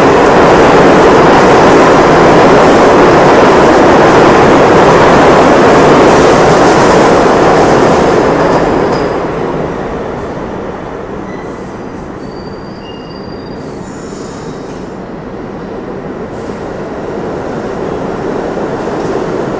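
New York City subway train running past on the far track: a loud rumble of wheels on rail that fades away about eight seconds in, leaving a few faint wheel squeals, before a train's rumble builds again near the end.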